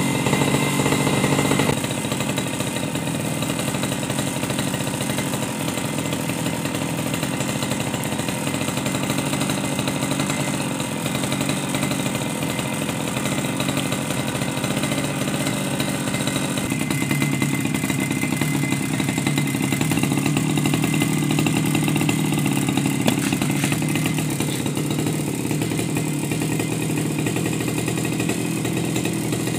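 Small two-stroke petrol grass trimmer engine idling steadily, with the cutting head at rest.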